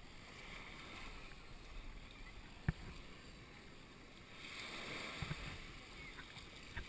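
Small waves washing onto a sandy shore, a faint steady hiss that gets louder about four and a half seconds in. A single sharp click cuts through about two and a half seconds in.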